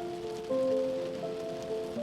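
Calm music of long held notes over the steady hiss of heavy rain, with a new, louder note coming in about half a second in.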